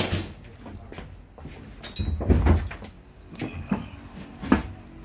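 Handling knocks on a concrete workshop floor. A sharp knock at the start, a heavier scuffing thump around two seconds in, then a few light knocks as a plastic fluid bottle and parts are set down.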